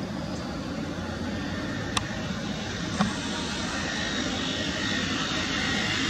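Steady rumble of distant engine noise that slowly grows louder, with two sharp clicks about a second apart near the middle.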